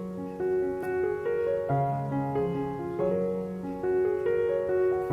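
Background piano music: a slow line of struck notes over held chords, with a new note about every half second.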